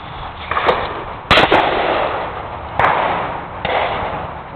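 A single shotgun shot at a clay target about a second in, sharp and loud, followed by a noisy tail that lingers for a few seconds.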